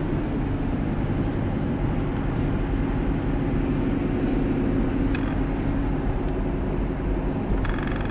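Steady in-cab road noise of a vehicle being driven: an even low engine and tyre rumble, with a couple of faint ticks.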